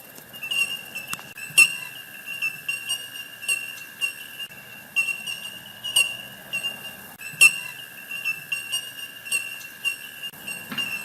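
Recording played as the echidna's sound: short high chirps and clicks, irregularly about one or two a second, over a steady high whine.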